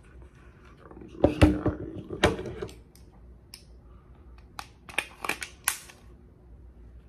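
Glock pistol being reassembled by hand, its slide fitted onto the polymer frame: a few loud clacks, then about two seconds later a quick run of sharp clicks.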